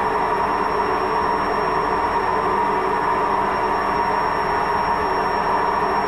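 Koenic front-loading washing machine running with a loud, steady grinding drone and a steady whine over it: the noise of a failed drum bearing.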